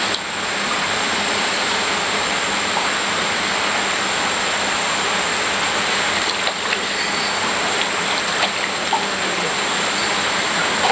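Water splashing and churning steadily as a crowd of red-and-white koi circle at the surface of a holding tub, with small drips and splashes standing out now and then.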